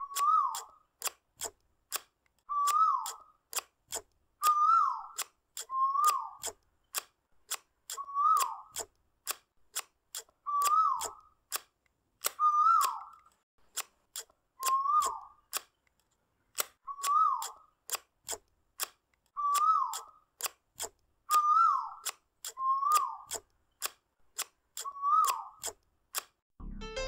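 Scissors cutting through a sheet of drawing paper. There is a steady run of sharp snips, and about every second and a half a short whistle-like squeak that rises, then falls. Piano music comes in right at the end.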